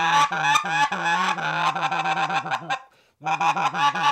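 RedBone specklebelly (white-fronted goose) call blown with a cupped two-handed grip, making the scratch or murmur: a fast run of wavering, rolling goose notes. The run breaks off briefly near three seconds in, and a second run follows.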